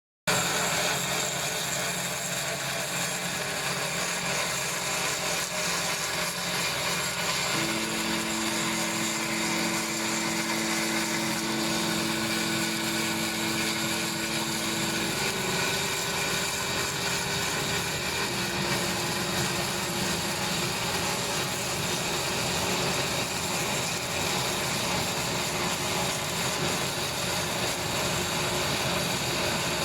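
CNC fast-wire foam contour cutter running steadily while cutting polyurethane foam, a dense mechanical hum and hiss. A pair of steady motor tones comes in after several seconds and shifts pitch twice later on.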